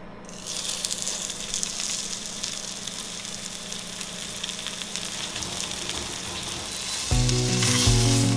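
Rolled, flour-dusted pork belly sizzling in hot oil in an enamelled cast-iron Staub frying pan as it is laid in to sear; the sizzle starts just after the start and stays steady. Background music comes in near the end, over the sizzle.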